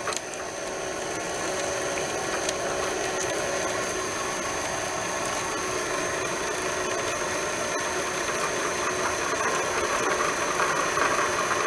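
Bernina 530 sewing machine's bobbin winder running, spinning the bobbin as thread winds onto it: a steady motor whir with a thin high whine, growing slightly louder toward the end. It keeps running until the bobbin is full.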